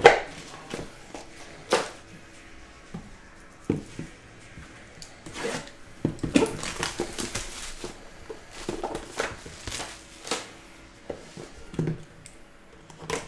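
Cardboard trading-card boxes being handled: scattered light taps and knocks as boxes are picked up and set down on a table, with a short run of scraping and rustling a little past the middle.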